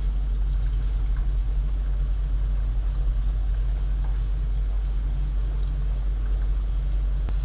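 Cornstarch-coated Japanese tofu frying in hot oil, a soft steady sizzle over a constant low hum.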